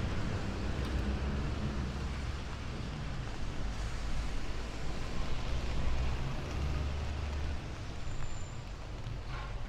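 Town street ambience: motor traffic running, with a low engine rumble that swells briefly past the middle, over a steady hiss.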